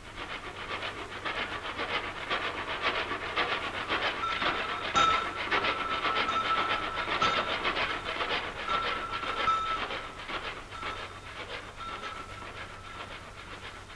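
Steam locomotive running, its exhaust chuffing in a rapid regular beat. From about four seconds in, a whistle sounds in several long blasts.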